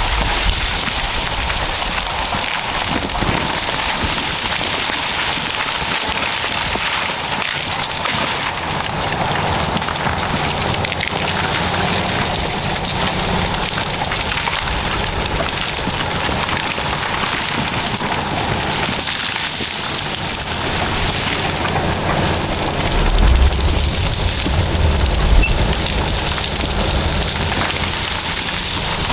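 Dense crackling and snapping of scrub and timber being flattened by an anchor chain dragged between Caterpillar D7 and D8 bulldozers, over the low, steady running of the dozers' diesel engines. A louder low rumble swells briefly near the end.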